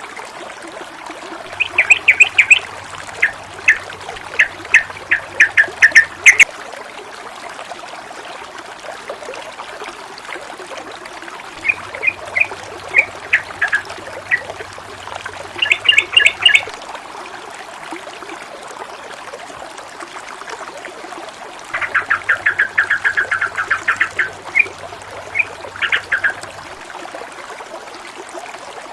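Steady noise of running, splashing water, with a bird's rapid chattering calls in three bouts of about five seconds each, roughly ten seconds apart.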